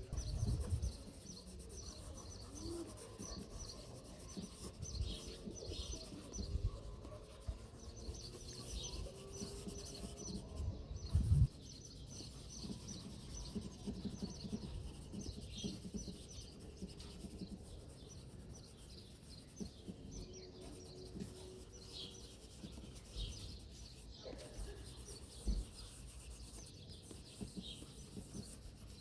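Graphite pencil scratching and rubbing on paper in quick, irregular strokes, with occasional low knocks; the loudest is a thump about eleven seconds in.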